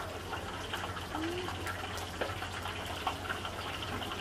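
Steady rushing background noise of a street-food stall kitchen over a constant low hum, with a few faint scattered clicks.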